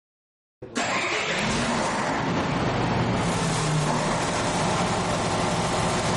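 An engine starting abruptly about a second in and then running at a steady level. Its electronic governor's starting fuel is set to maximum, the fix for an engine that cranks but will not start.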